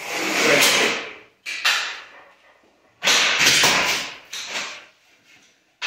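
Metal shower-door frame trim being pulled loose from the wall: noisy scrapes and rattles in bursts. The longest come at the start and about three seconds in.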